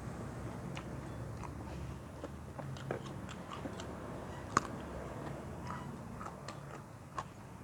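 A person chewing crisp raw vegetables with a meat salad, with scattered wet clicks and crunches and one sharper click about halfway through.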